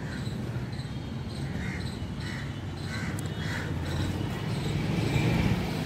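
A crow cawing about four times in an even series, starting about a second and a half in, over a steady low outdoor rumble.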